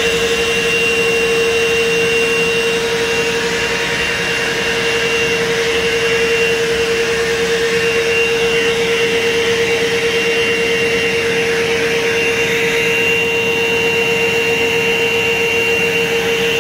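Hose-fed pet grooming dryer blowing air steadily: a constant whine over a rush of air, with no change in speed.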